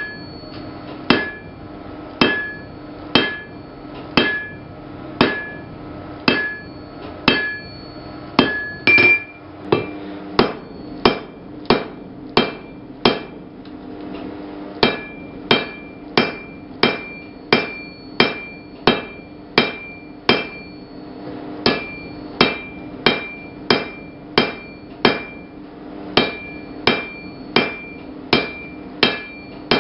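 Blacksmith's hammer striking hot steel on an anvil in a steady forging rhythm, about one to one and a half blows a second, each blow ringing. There is a short pause about halfway through, then the hammering resumes.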